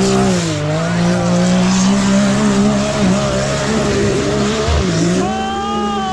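Side-by-side UTV engine held at high revs under hard throttle, its pitch sagging and climbing back a few times, most deeply about five seconds in, over a rough hiss.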